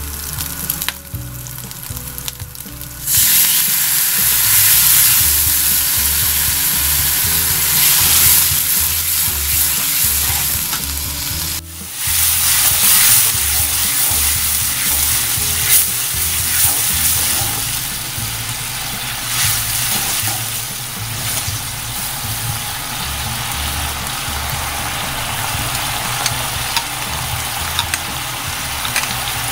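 Food stir-frying in hot oil, sizzling steadily as it is stirred. The sizzle jumps suddenly louder about three seconds in, as if fresh ingredients hit the hot oil. It breaks off for a moment near the middle, then comes straight back loud and slowly settles.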